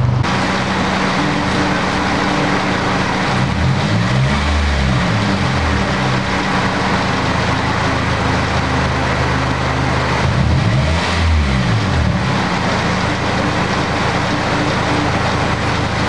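Toyota Celica's four-cylinder engine running at idle and heard at the exhaust, with its pitch rising and falling briefly twice, about four and about eleven seconds in. The engine has a misfire with code P0354 and is putting out dark smoke, which the owner calls not a good sign.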